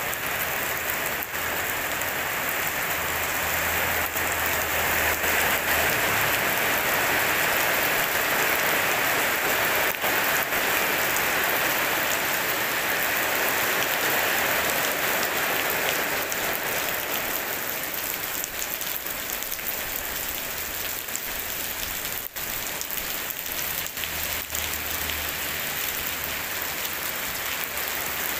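Heavy rain pouring onto wet paving and puddles, a steady dense hiss of splashing that grows heavier for several seconds in the first half, then eases a little.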